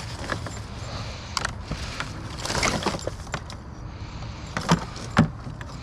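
Scattered knocks, clinks and rustles of discarded household items being handled and picked through, over a steady low outdoor rumble.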